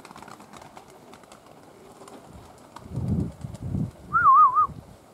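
Strong wind hitting the microphone in two low gusts about three seconds in, then a short, high warbling whistle just after.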